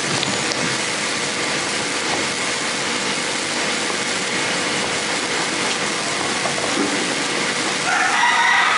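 Steady hiss of recording background noise, with a faint steady hum-like tone under it.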